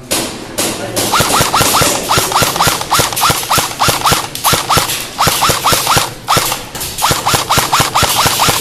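An airsoft electric rifle firing shot after shot, about five a second, with a sharp crack and a short springy twang on each shot. It fires in strings, with two brief pauses.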